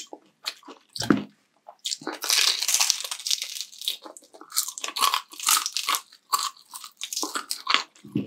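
Close-miked crunching and chewing of crispy deep-fried pork: a quick run of sharp crunches, with a denser stretch of crackling about two seconds in.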